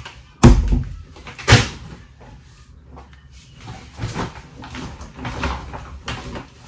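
Two heavy thumps about a second apart as groceries and a shopping bag are set down, followed by quieter rustling and knocking as the shopping bags are handled.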